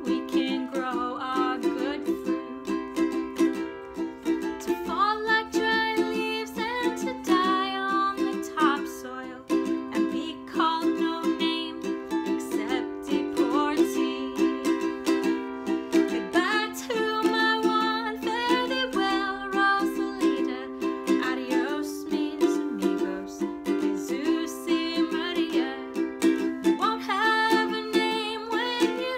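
Ukulele strummed in a steady rhythm, with a woman singing a slow folk melody over it in phrases.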